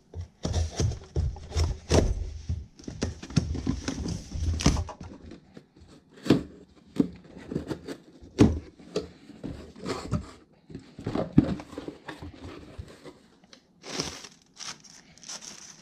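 Cardboard shipping box being cut open along its tape with scissors, with scraping and snipping for the first few seconds. Then knocks of the box and flaps being handled, and near the end a plastic-wrapped item rustling as it is pulled out.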